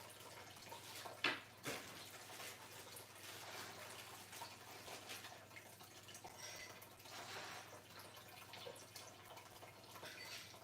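Faint clicks, rustles and handling noises of desk parts being fumbled with during assembly, with one sharp knock about a second in.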